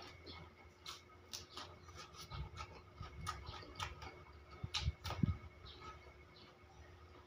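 Close-mouthed chewing and lip-smacking, heard as soft wet clicks at irregular intervals, with a few louder smacks about five seconds in.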